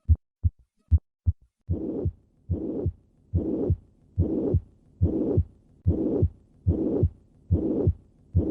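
Heart sounds of a patient with mitral regurgitation. Two clean lub-dub beats come first, then from about two seconds in a holosystolic murmur of constant intensity fills each beat from the first heart sound to the second, at roughly 70 beats a minute.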